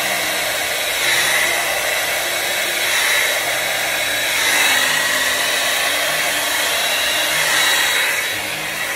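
Handheld hair dryer blowing a steady rush of air that rises and falls in loudness every second or two as it is swept across wet acrylic pour paint, blowing the paint out into a bloom.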